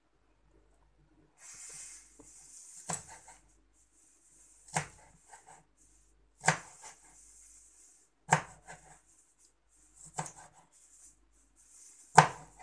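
A large chef's knife chopping spring onions on a plastic cutting board: six slow, separate chops, about one every two seconds, the last the loudest, with a faint hiss between them.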